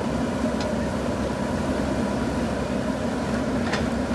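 Diesel engine of a JCB 3DX backhoe loader running steadily at working revs, with two faint clicks, one about half a second in and one near the end.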